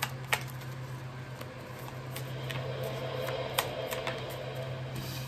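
A few sharp clicks and taps from tarot cards being handled, over the steady low hum of a running air purifier.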